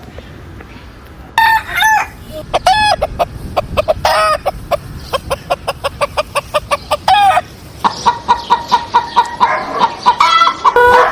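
Hens clucking: after a quiet first second or so, a string of short clucks that come thick and fast from about four seconds in, giving way near the end to a busy chatter of quick calls.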